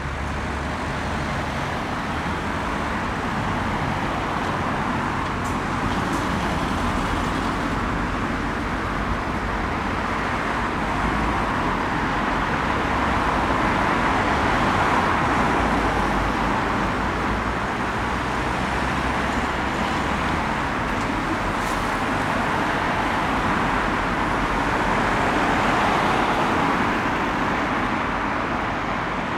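Road traffic passing: a steady wash of tyre and engine noise that swells as vehicles go by, about halfway through and again near the end.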